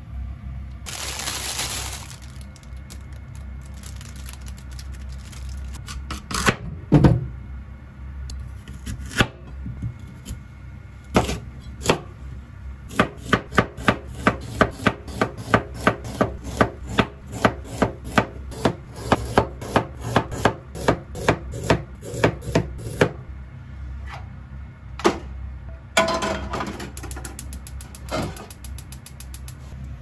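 Kitchen knife slicing lotus root on a cutting board: a few separate knocks, then a long run of quick, even chops, about three a second, for some ten seconds. A steady low rumble runs underneath.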